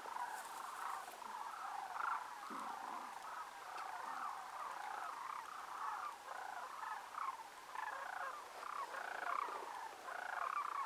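A flock of sandhill cranes calling in flight, many birds' rolling, rattling calls overlapping in a steady chorus.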